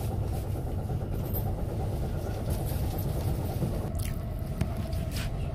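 Steady low rumble of a passenger train running, heard from inside the carriage, with a few light clicks scattered through it.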